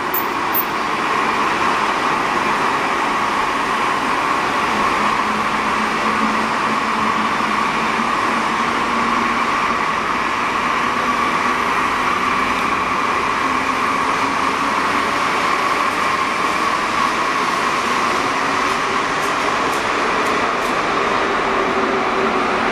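Santiago Metro Concarril NS88 rubber-tyred train running along the station platform: a steady hum and rush from its running gear and equipment, with a low tone that slowly rises in pitch. A few faint ticks come near the end.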